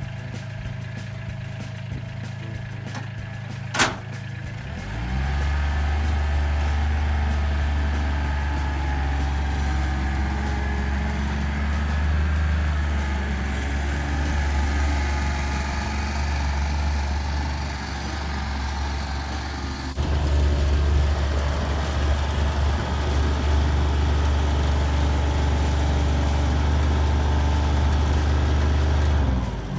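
An engine or motor running steadily. A sharp click comes a few seconds in, then it speeds up to a higher, louder steady hum, and it winds down near the end.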